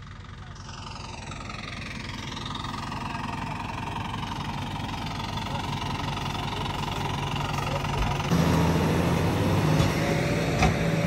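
Tractor engines straining under heavy load while pulling a trolley stuck in a wet field. They grow steadily louder, and about eight seconds in the engine note jumps up and holds loud and steady, with a single knock near the end.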